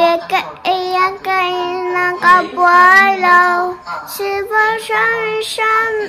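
A young girl singing a song in a clear, high voice, holding long, steady notes with short breaths between phrases.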